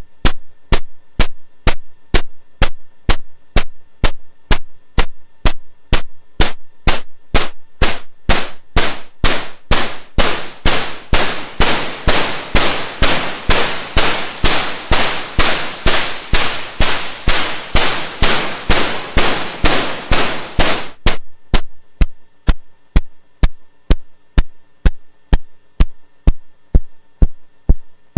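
Eurorack noise percussion module (Hive Mind Synthesis SODApressed) triggered at a steady two hits a second. The short, clicky noise hits grow longer from about eight seconds in into hissing static bursts that almost run together, as the decay is lengthened. About twenty-one seconds in they cut back to short ticks.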